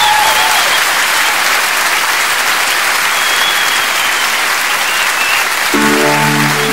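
Live concert audience applauding between songs, with a few shrill whistles over the clapping. About six seconds in, sustained instrumental chords of the next song start under the applause.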